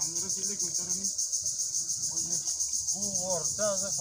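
Insects chirping in a high, even pulse about five times a second, with people talking indistinctly underneath, louder near the end.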